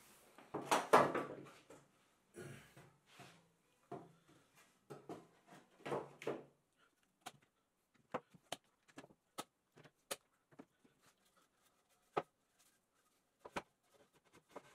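A loud burst about half a second in, a few shorter sounds after it, then a dozen or so short, sharp clicks and knocks at irregular intervals.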